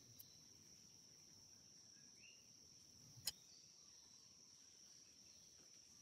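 Near silence: room tone with a faint steady high-pitched tone and a single soft click a little over three seconds in.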